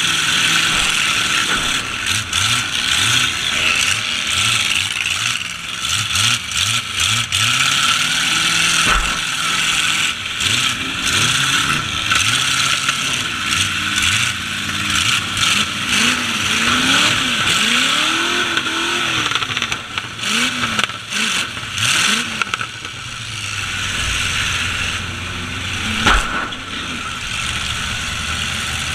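Truck engines in a demolition derby revving hard, the pitch rising and falling several times in quick succession, with scattered knocks and one loud bang near the end.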